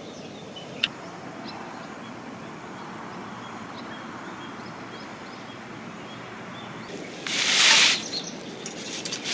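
Steady outdoor campsite ambience with faint, scattered bird chirps. About seven seconds in comes a loud rustling scrape lasting under a second, then a few light clicks as things are handled.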